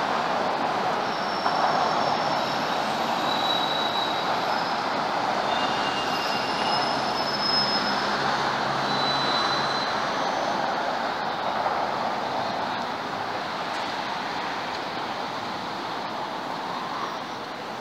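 Steady hiss of road traffic on a city street, with a few short high-pitched squeaks over it.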